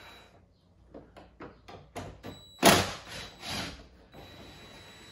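Cordless drill-driver taking out the small bolt that holds an interior truck door handle: a run of short clicks, a sharp knock a little past halfway, then the drill running steadily with a thin high whine near the end.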